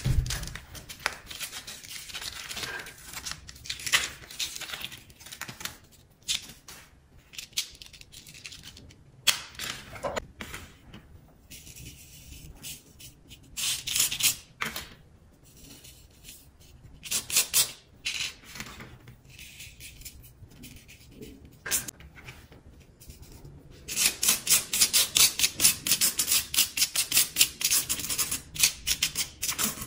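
Plastic spoon scraping and rubbing coloured sand over the sticky surface of a sand-art card in short strokes, with a quick, even run of rubbing strokes near the end.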